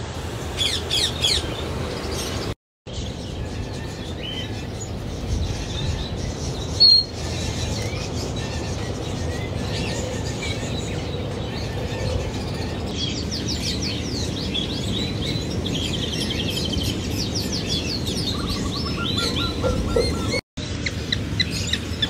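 Small aviary birds chirping and twittering in many quick, overlapping calls over a steady low background noise.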